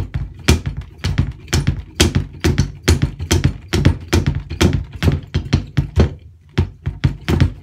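Kick drum pedal played with the slide technique: the foot slides up the footboard so the beater strikes twice in quick succession, giving a steady run of paired thuds.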